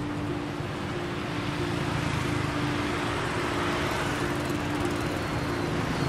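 Road traffic on a bridge: motorbikes and cars passing, the noise swelling a little about a third of the way in as a group of motorbikes comes by. A steady two-note low hum runs underneath.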